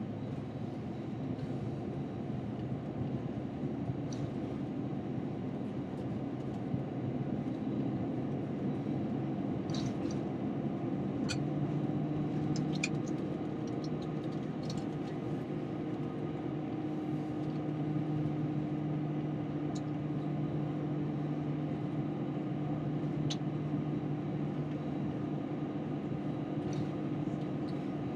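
Airbus A321 cabin noise on the ground, heard from inside the cabin: a steady low drone of idling jet engines and cabin air, with a deeper tone growing stronger about a third of the way in. A few light clicks and rattles from the cabin are scattered through it.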